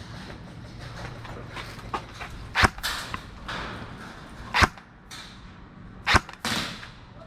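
Airsoft guns firing single shots: three sharp cracks roughly a second and a half to two seconds apart, each with a short hissing tail, with a few fainter clicks between.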